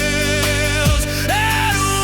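Pop ballad music in an instrumental passage with no singing: a deep beat about a second in, and a melody note that slides up and then holds.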